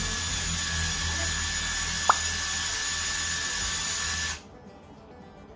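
Electric drill driver working into wooden boards, running in a long, loud whine that cuts off suddenly about four seconds in. A short sharp click stands out about two seconds in.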